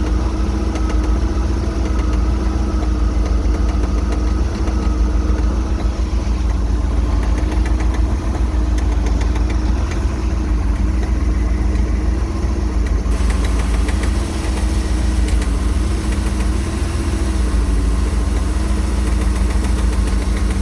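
MerCruiser 260 5.7-litre V8 marine engine idling steadily with a repetitive knock, a knock that shows only at idle and goes away when the revs come up; its cause is not yet found.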